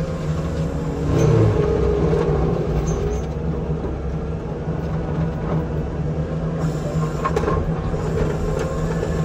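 Forestry mulcher heard from inside its cab, running under load with a steady low drone as its head grinds brush and soil. It gets a little louder about a second in, with a few sharp ticks later on.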